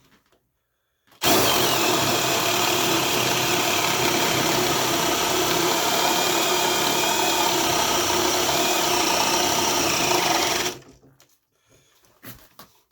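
Brushless Makita cordless hammer drill in drill mode at speed 2, boring with a 1.25-inch paddle bit. It starts about a second in, runs at a steady pitch and load for about nine seconds, then stops near the end. The owner thinks the bit may have caught at the bottom of the hole.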